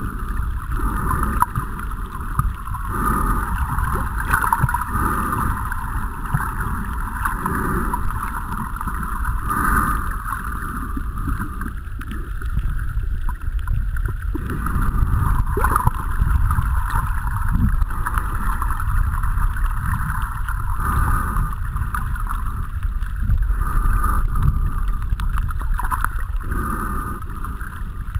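Muffled underwater water noise picked up by a camera in a waterproof housing held by a swimming snorkeler: a steady low rumble with a hiss that swells and fades every second or so.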